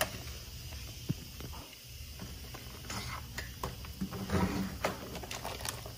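Hard plastic blister pack being pried and torn open by hand, giving scattered crackles and clicks of the plastic.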